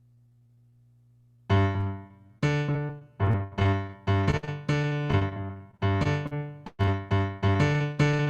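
A faint low hum, then about one and a half seconds in a piano starts playing, each chord struck and then fading.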